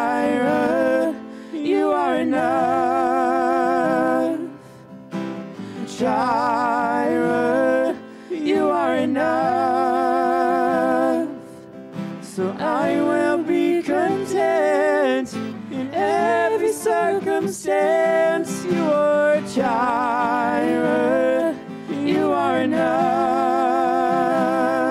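A live worship song: a woman and a man singing a slow melody with vibrato, in phrases separated by short pauses, over strummed acoustic guitar.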